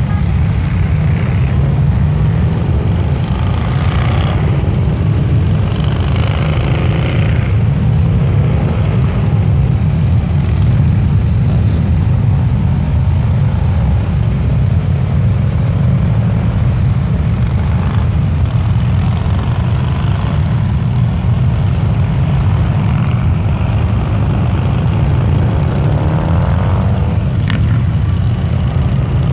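A large pack of Harley-Davidson motorcycles rolling past slowly: a steady deep rumble of many V-twin engines, with now and then a single bike revving up and down.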